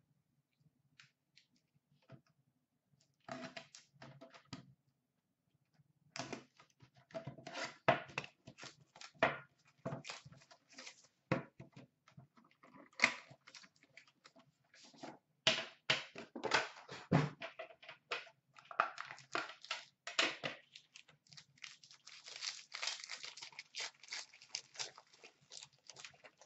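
Hands tearing open a box of Upper Deck Premier hockey cards and the foil-wrapped pack inside: irregular tearing, snapping and crinkling of cardboard and foil wrapper. The sound starts a few seconds in and grows into dense crinkling near the end as the wrapper is crumpled.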